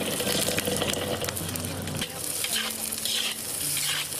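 Fresh broad beans sizzling in a hot wok while a spatula stirs them, with scraping against the wok.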